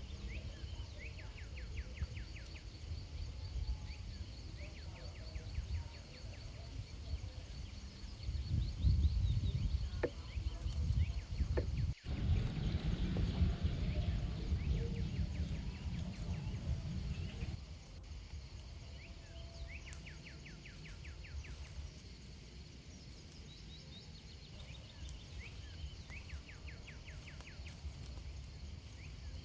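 Outdoor ambience with insects chirping in repeated fast trains of ticks. A louder low rumbling noise fills the middle stretch, then drops away suddenly.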